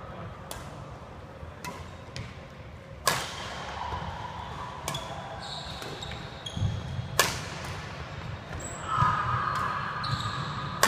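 Badminton rackets striking shuttlecocks in a series of sharp hits, the loudest two (smashes) about three and seven seconds in, with sneakers squeaking on the wooden court floor between shots.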